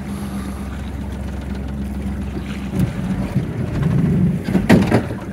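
Outboard motor on an aluminum jon boat running steadily, then from about three seconds in the hull and motor knock and scrape over sea ice, with a loud bump near the end.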